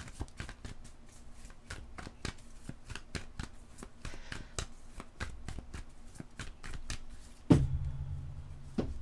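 A deck of tarot cards being shuffled by hand: a long run of quick, soft card clicks, then a single louder thump about seven and a half seconds in.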